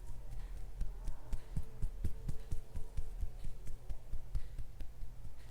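Fingertips tapping quickly on the skin of the neck and face in a tapotement self-massage: a fast, irregular patter of soft taps over a low steady hum.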